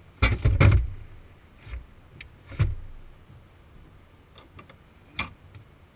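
Heavy car battery being set down into the trunk battery tray of a 2006 Chrysler 300: a cluster of dull thuds and clunks about a quarter second in, another thud near the middle, then a few light clicks and taps as it is settled into place.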